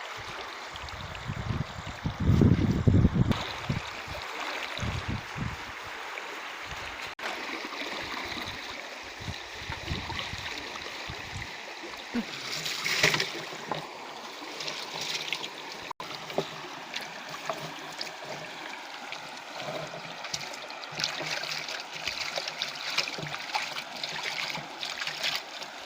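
Water trickling and splashing steadily, with a loud low rumble about two to three seconds in.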